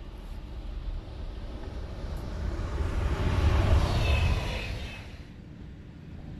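Electric passenger train passing at speed on the rails: the rumble and rush of the wheels build to a peak about four seconds in, with a brief high whine as it goes by, then fade away quickly.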